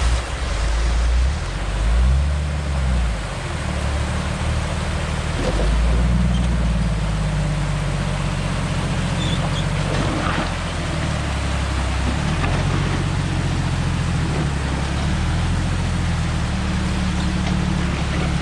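Pickup truck engine running while driving off-road, its revs rising and falling with the throttle, under a steady rush of road and cabin noise.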